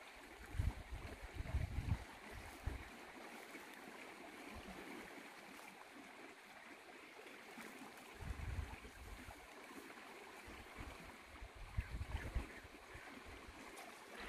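Faint, steady flow of a stream, an even soft hiss of running water, with a few low rumbles near the start and again around eight and twelve seconds in.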